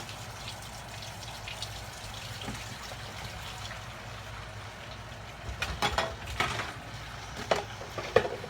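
Water running steadily, with several knocks and clatters in the last three seconds.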